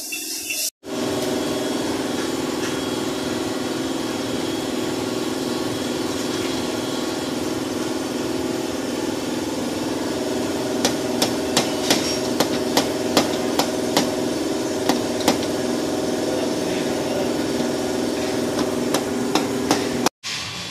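Steady machine hum, and from about halfway in a run of sharp taps, roughly two a second and somewhat irregular, as of a tool tapping on the car's body panel during paintless dent repair.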